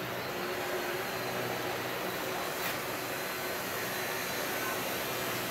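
A machine running steadily, a rushing noise with a faint hum that holds the same level throughout.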